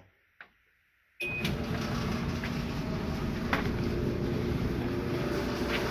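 Whirlpool Duet electric dryer started about a second in with a short beep, then running steadily: the drum motor and blower hum with rushing air. The faulty high-limit thermostat is temporarily bypassed to test whether the dryer heats.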